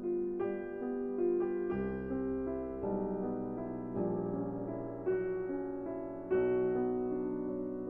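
Soft lo-fi background music on electric piano, chords and notes struck about once a second and left to ring.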